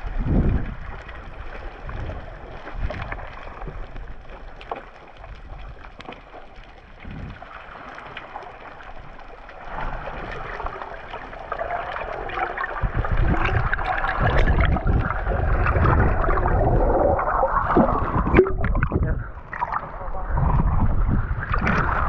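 Muffled water noise picked up by an action camera held underwater, with scattered knocks. About halfway through it grows louder into bubbling and sloshing water as the camera comes up into rough waves at the surface.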